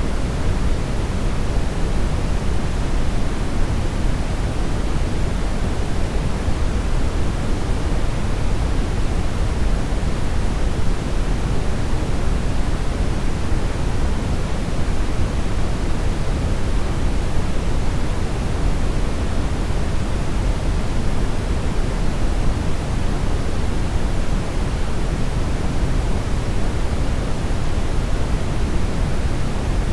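Brown noise: a steady, even rumbling hiss, weighted heavily toward the low end, with no changes.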